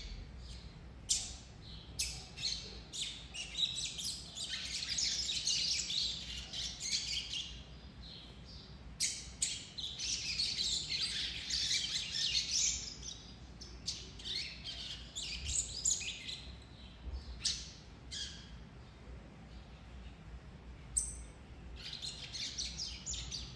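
Young double-collared seedeater (coleiro) in brown juvenile plumage giving a very thin, rambling subsong ('churiado'): soft high twittering in several bouts with short pauses and no recognisable song phrases. It is the unformed practice song of a bird still learning its song, not yet ready to be 'opened'.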